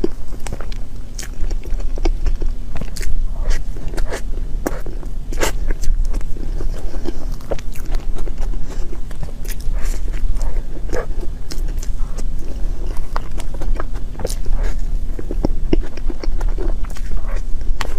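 Close-up eating sounds: irregular biting and chewing clicks and smacks over a steady low rumble.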